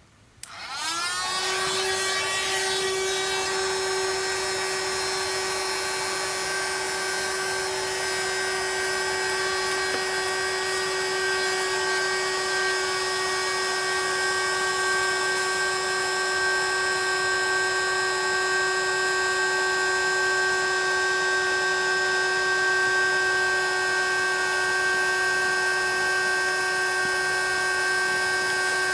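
Battery-powered electric air pump starting up and running steadily while inflating an inflatable boat through its hose. Its motor whine climbs in pitch as it spins up in the first second, then holds a steady tone.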